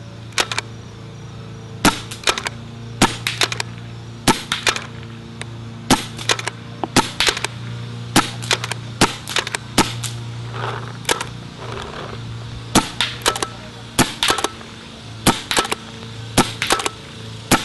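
A Sanchez Machine SM1 pump paintball marker with CCM internals, run on compressed air, fired about fifteen times at roughly one shot a second. Each shot is a sharp pop, mostly heard as a quick pair or three of clicks, which the shooter calls incredibly quiet. A steady low hum runs underneath.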